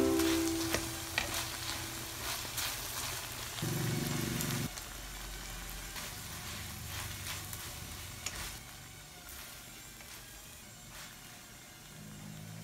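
Ground pork menudo with diced vegetables sizzling in a wok as it is stirred with a spatula, with scattered light scrapes and taps of the spatula against the pan.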